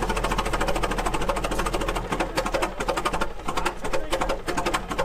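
Antique multi-cylinder gas engine running, its firing and valve gear making a fast, even clatter of sharp ticks.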